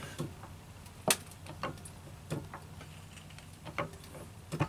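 Hydraulic floor jack being pumped up to raise the car, its handle and mechanism giving a series of sharp clicks and knocks at uneven intervals.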